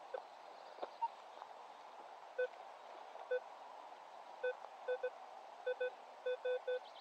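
Metal detector giving short low-pitched beeps as its search coil is swept over the ground. The beeps come singly at first, then more and more often, about three a second near the end.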